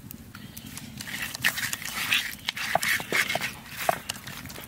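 Bare hand rubbing salt and turmeric into whole raw climbing perch on a clay plate: irregular wet rubbing strokes with small clicks of fish and fingers against the plate, starting about a second in.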